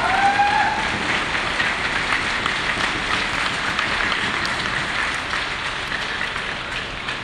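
Audience clapping, a dense patter of many hands that slowly dies away.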